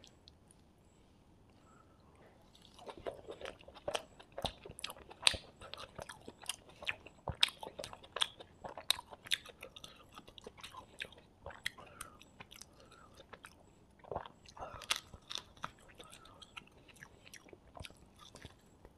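Close-miked eating sounds: chewing and crisp crunching bites of porotta and fried quail, many sharp crackles a second, starting about three seconds in after a quiet opening.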